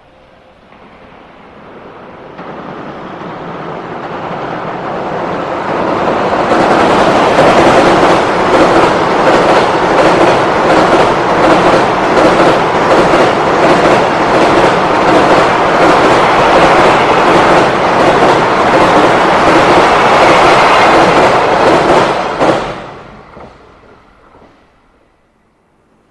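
Freight train passing at speed. The rumble builds for several seconds as it approaches, then holds a long run of fast, regular wheel clatter over the rail joints, and drops away sharply near the end before fading out.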